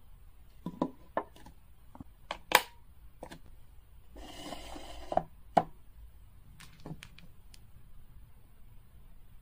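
Sharp knocks and taps of hard plastic toy items being handled and set down on a stone countertop, the loudest about two and a half seconds in, with a brief rushing noise about four seconds in and lighter taps after.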